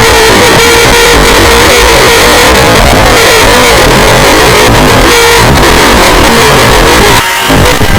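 Extremely loud, heavily distorted and clipped scream sound effect: a harsh wall of noise with a wavering held pitch, breaking off briefly near the end.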